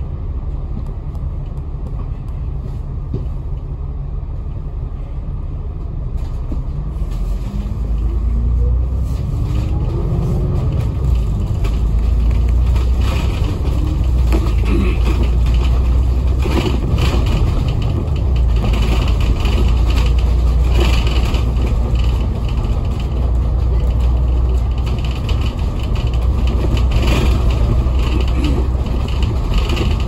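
Diesel engine of a KMB bus pulling away: the engine note rises for a few seconds about a quarter of the way in, then a heavy low rumble as the bus drives on, with scattered rattles and knocks.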